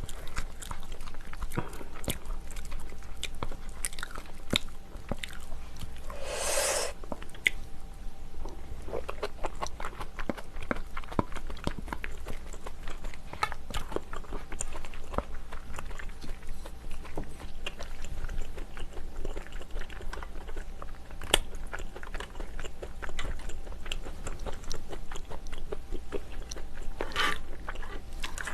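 A person eating seafood stew close to the microphone: chewing and biting with a steady run of small wet clicks, and a short louder sound about six and a half seconds in and again near the end.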